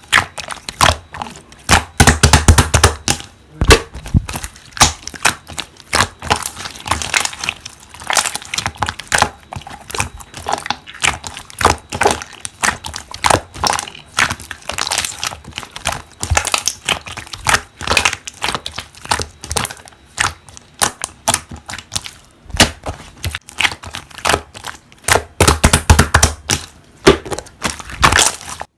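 Slime being squeezed and pressed by hand, giving a dense run of rapid crackles and pops, thickest about two seconds in and again near the end.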